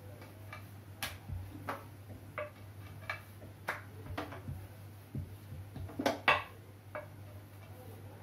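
Wooden rolling pin rolling out dough on a metal plate, knocking against the plate in irregular clicks, with two louder knocks about six seconds in. A low steady hum runs underneath.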